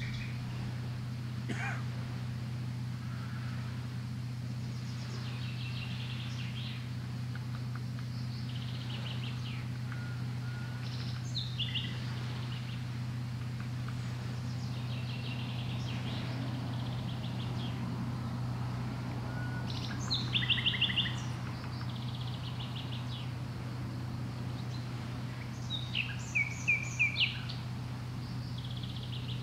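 Songbirds chirping and trilling, with short scattered calls and two louder bursts of rapid trills, one about two-thirds of the way through and one near the end, over a steady low hum.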